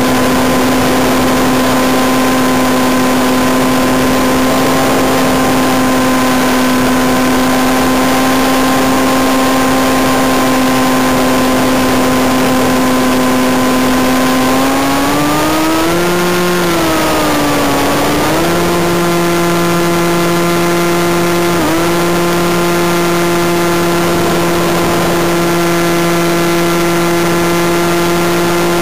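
Electric motor and propeller of a HobbyZone Firebird Freedom RC plane in flight, heard from the plane itself: a steady whine over a constant hiss. About halfway through the pitch rises, wavers and dips as the throttle changes, then it settles at a higher pitch with a second, lower tone alongside.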